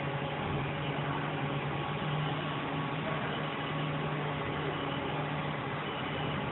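Steady hum of a powered-up Haas VF-2SS CNC vertical machining center: a constant low tone over an even hiss, unchanging throughout.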